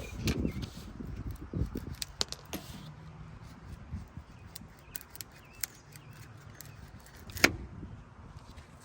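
Scattered small clicks and rattles from handling windshield trim molding and its clips, with one sharp click about seven and a half seconds in.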